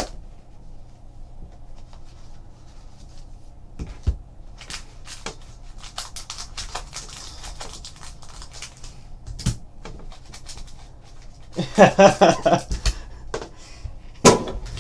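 Handling noise as a rigid black trading-card hobby box is opened: scattered light taps, scrapes and rustles of the box and its hinged lid, with a louder stretch of clattering and rustling about twelve seconds in as the packs are taken out.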